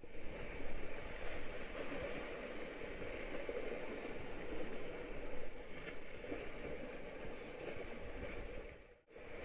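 Sea surf washing over shoreline rocks, with wind rumbling on the microphone; a steady, even wash of noise. The sound drops out briefly about nine seconds in.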